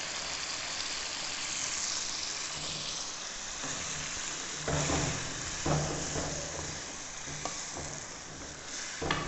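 Watery blended tomato masala sizzling in hot oil with fried chicken pieces in an aluminium pot. From about halfway a wooden spoon stirs it, with several short knocks against the pot.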